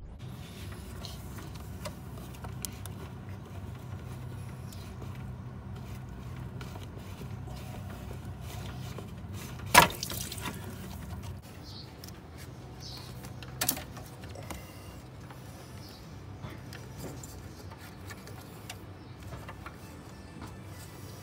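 Hands working plastic coolant hose connectors in an engine bay: a few sharp clicks and knocks, the loudest about ten seconds in and another near fourteen seconds, over a steady low hum.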